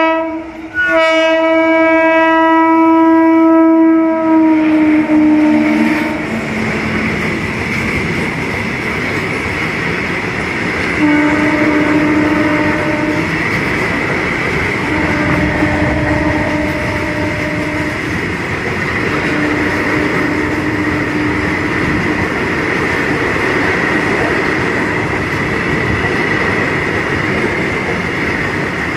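WAG-7 electric locomotive's air horn sounding a long blast as it approaches, dropping in pitch as it goes by, then three shorter, lower blasts as it draws away. Throughout, the loud rumble and clatter of BOXN open wagons rolling past on the track, with a steady high-pitched wheel squeal.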